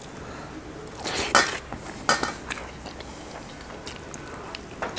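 Someone eating chicken curry and rice by hand from steel dishes: a few sharp clinks and clicks of the steel plate and bowls, about a second in and again around two seconds, among the mouth sounds of biting and chewing a chicken leg.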